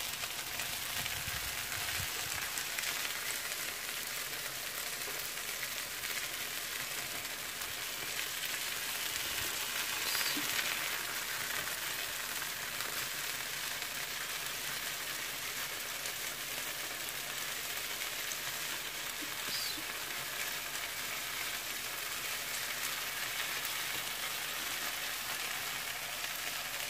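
Skewered chicken pieces sizzling in butter on a hot flat griddle pan (tawa): a steady frying hiss, with a few faint clicks.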